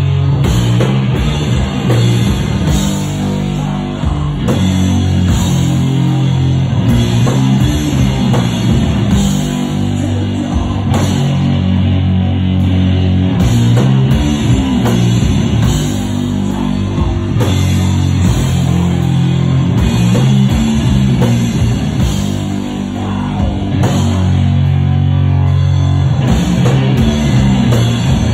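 Sludge metal band playing live, loud: heavily distorted low guitar and bass riffs held in long chords over a drum kit.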